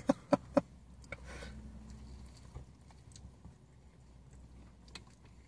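Faint chewing of two people eating burritos, with a few sharp clicks in the first second and small scattered mouth sounds after.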